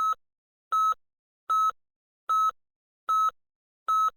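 Short, high electronic beeps of one pitch, repeating evenly about five times in four seconds.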